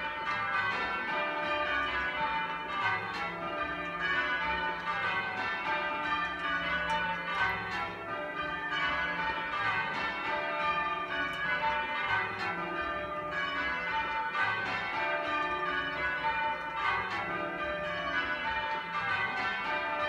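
Ring of eight church tower bells (about 20 cwt) being rung full-circle in change ringing, the bells striking one after another in a continuous even rhythm. The bells are heard from the ringing chamber beneath them.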